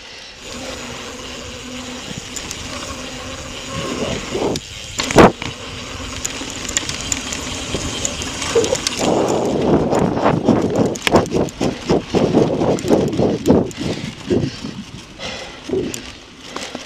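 Mountain bike ridden fast on dirt singletrack: a steady rush of wind and tyre noise, one sharp loud knock about five seconds in, then a continuous rattle and clatter of the bike over rough, leaf-covered ground from about nine seconds on.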